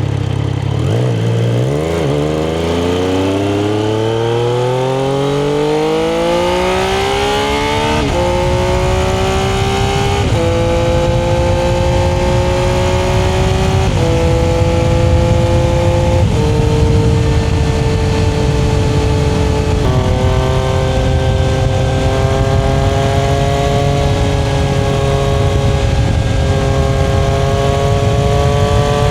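Triumph engine pulling away, its revs rising steadily for about six seconds, then dropping in pitch five times as it shifts up through the gears, and settling into a steady cruise with revs creeping up slowly. A constant low rumbling noise runs underneath.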